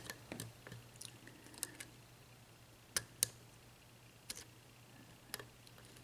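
Faint, irregular clicks of a lock pick and tension wrench working the spool and serrated pins of a Yale six-pin mortice lock, checking that the pins stay set. The two sharpest clicks come close together about three seconds in.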